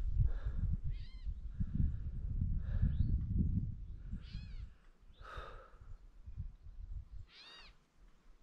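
About five short, nasal, mewing animal calls, each one rising and then falling in pitch, spaced a second or two apart. A low rumbling noise runs under the first half and then fades.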